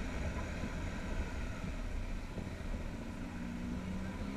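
Motorcycle ridden slowly through city traffic, heard from a camera mounted on the bike: a steady low rumble of engine and road noise, with a faint steady drone joining about three seconds in.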